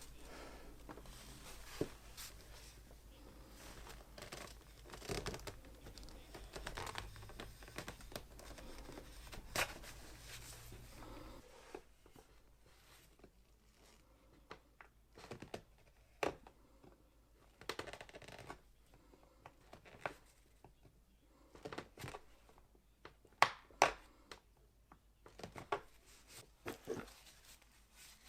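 Blade shaving and scraping an oak axe handle being hand carved, in irregular sharp strokes. A low background noise drops out a little before halfway, leaving the cuts standing out more sharply.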